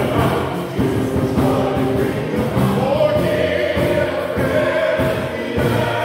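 Church choir of men and women singing together in parts, holding long sustained notes.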